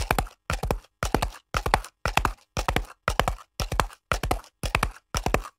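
Horse hooves clip-clopping in an even beat of about two strikes a second, with silence between the strikes.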